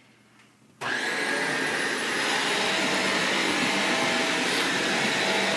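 Upright vacuum cleaner switched on about a second in, its motor whine rising as it spins up, then running steadily.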